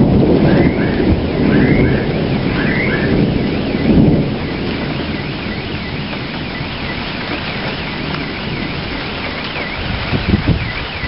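Thunder rumbling over steady rain, loudest in the first four seconds, while a car alarm sounds. The alarm first gives repeated rising-and-falling whoops about once a second, then from about three seconds in switches to a fast up-and-down warble.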